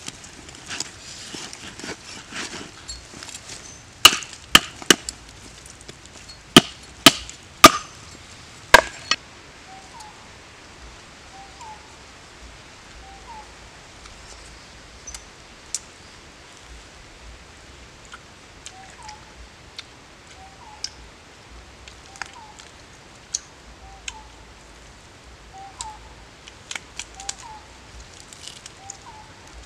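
Knife chopping roasted pork leg on a wooden chopping board: about seven sharp chops come in quick succession in the first nine seconds. After that, a bird's short call repeats about once a second, with a few faint clicks.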